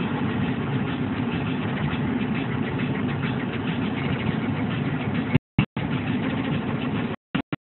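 Steady road and engine noise inside a moving car's cabin. The sound cuts out to silence several times in short gaps near the end.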